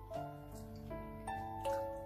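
Calm instrumental background music, its sustained notes changing every half second or so.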